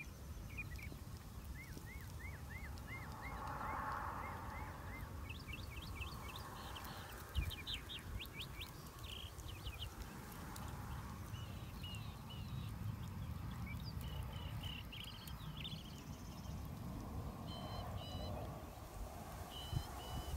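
Northern mockingbird singing, running through a series of different phrases and repeating each several times before switching, over a steady low rumble.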